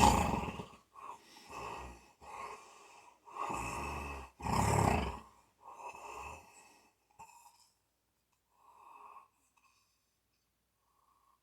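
Snoring: a quick, irregular run of noisy breaths for about the first seven seconds, which then dies down to one or two faint breaths.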